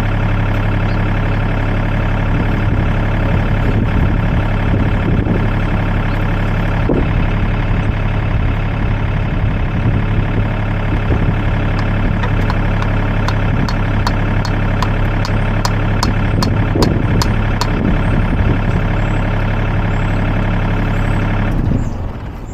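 Sany mini excavator's diesel engine running steadily at a constant speed, with a run of light ticks in the second half; the engine shuts off about a second before the end.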